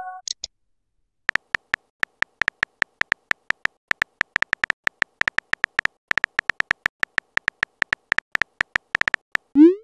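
Phone keyboard key-click sound effect from a texting app, a rapid, irregular string of short ticks, several a second, as a message is typed out letter by letter. It ends with a short rising swoosh as the message is sent.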